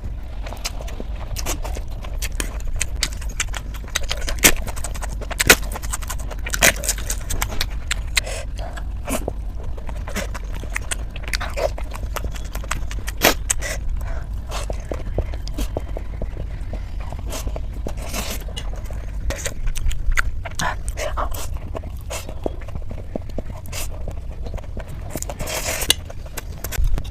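Close-up eating sounds of noodles: irregular wet clicks and smacks of chewing and slurping, with a longer slurp near the end, over a steady low hum.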